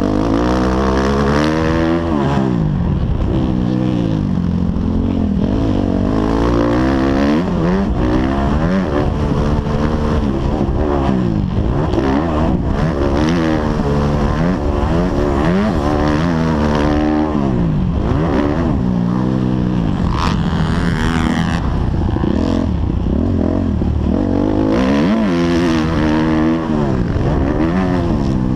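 Motocross bike engine revving hard under race load, its pitch climbing and dropping over and over as the rider accelerates and shuts off through corners and jumps, heard from a camera on the rider's helmet.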